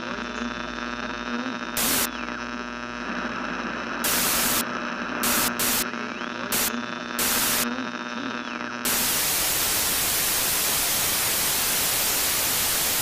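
Television static played through the theatre sound system. A steady hum with faint wavering whistles is cut by several short bursts of loud hiss, then from about nine seconds in it turns into continuous loud white-noise hiss, like an untuned TV.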